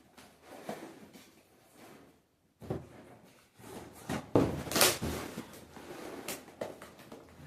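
Cardboard box and foam packaging being handled and pulled off an electric fireplace: scattered scrapes and knocks, with the loudest scrape about halfway through.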